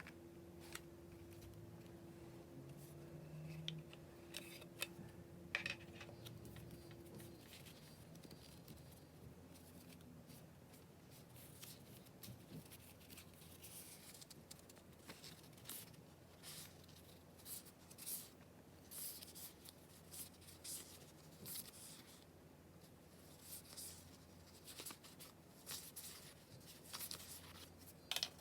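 Faint packaging handling: short scratchy snips and rustles of paper and plastic being cut and opened, sparse at first and coming thick and fast in the second half.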